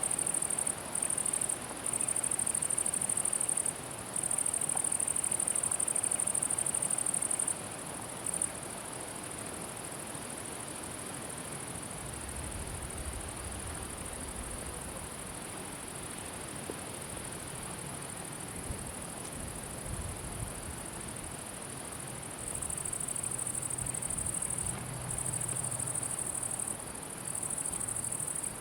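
A cricket-like insect stridulating: a high, steady buzzing in long stretches broken by short pauses. It drops back to a fainter level about a third of the way in and comes back louder near the end.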